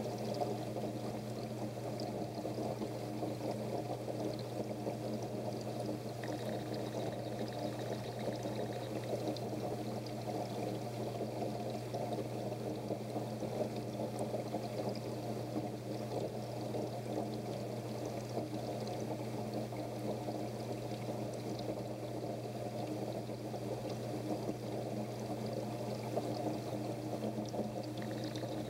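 Steady rush of moving water in a goldfish aquarium, unbroken and even, with a low steady hum beneath it.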